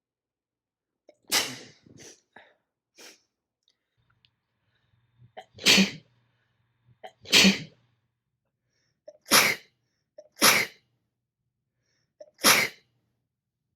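A person with a cold sneezing six times, each sneeze a short, loud burst. Most have a brief, faint lead-in just before, and a few quieter short sounds follow the first.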